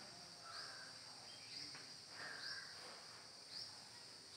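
Faint swishing strokes of a duster wiping a whiteboard, several in a row. A faint high chirp repeats about once a second in the background.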